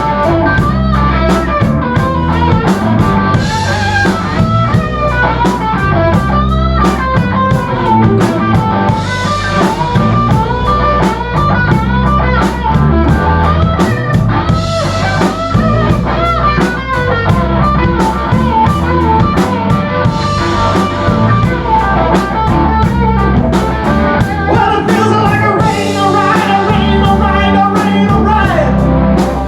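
Live blues-rock band playing a stretch without sung words, with guitar and drum kit to the fore.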